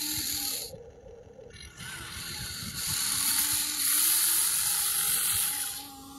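A Huina 1593 RC excavator tips a bucket of loose soil and clods into the bed of an RC articulated dump truck: a hissing, rattling rush of earth. It starts with a short burst, builds from about a second and a half in, is loudest in the second half and stops just before the end.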